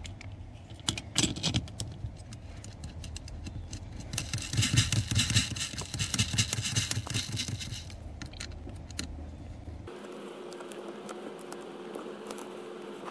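Metal aluminum pedal pad and its hardware clinking and scraping as it is fitted over a car's brake pedal. A few sharp clicks come about a second in, and a busier stretch of rapid clicking and scraping follows in the middle, then only a steady hum.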